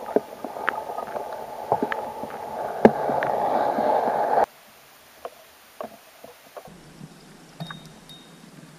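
Muffled underwater water noise with frequent clicks and pops, as heard through a camera housing held under the lake surface among weeds. About halfway through it cuts off abruptly to much quieter open-air sound with a few faint ticks.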